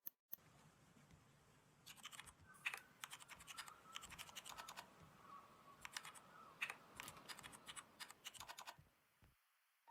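Faint typing on a computer keyboard: a quick, uneven run of key clicks that starts about two seconds in and stops just before the end.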